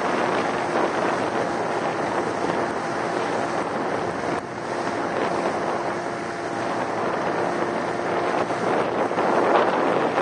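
Wind buffeting the microphone and water rushing past a moving inflatable boat, over the steady hum of its motor. There is a brief dip about four seconds in.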